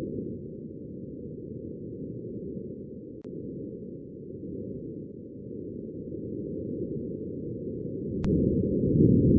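Wind on Mars picked up by the Perseverance rover's microphone: a low, muffled rush of air. It grows louder near the end, with a brief click about 3 s in and another just before the louder part.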